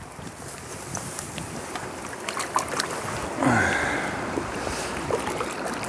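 Shallow stream water running over a gravel bed, with light clicks and rustles of handling. About three and a half seconds in, a short louder sound slides down in pitch.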